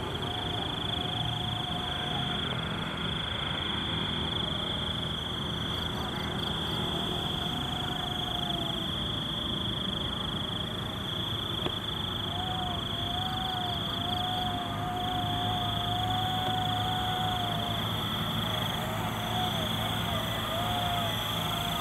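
Night insects trilling in a steady high-pitched drone with short breaks, over a faint wavering tone that comes and goes.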